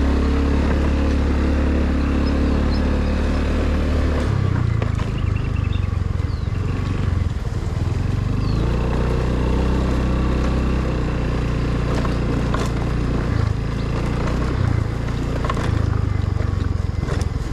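A vehicle engine running on the move, its low note stepping up and down several times as the throttle changes, with wind noise and a few short knocks from the ride.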